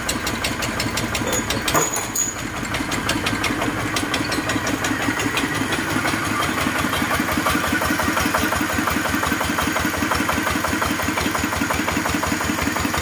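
Single-cylinder diesel engine of a two-wheel land-levelling tractor running steadily at idle with an even knocking beat, with a brief sharp knock about two seconds in.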